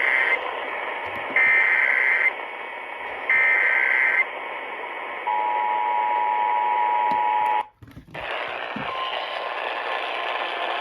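Emergency Alert System activation heard over AM radio: the end of one burst of screechy SAME header data, then two more bursts about a second long each. A steady two-tone attention signal follows for about two seconds, then a short dropout and steady AM radio hiss. The signal announces a child abduction alert.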